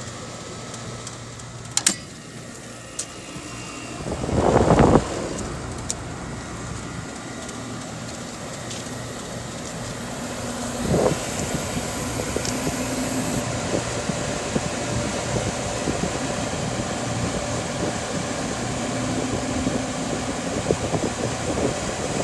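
Steady hum of running air-conditioning equipment fans, with a loud rush of noise about four seconds in lasting about a second, and a sharp click shortly before it.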